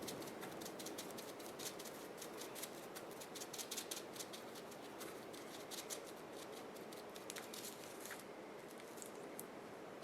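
Faint, quick scratchy strokes of a paintbrush on styrofoam, dense at first and thinning out after about eight seconds.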